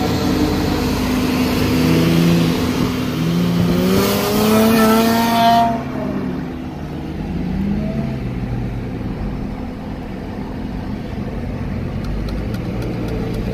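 Car engine accelerating, its note climbing in pitch for a few seconds under loud rushing wind and road noise. About six seconds in the rush drops away, leaving steady road noise while cruising.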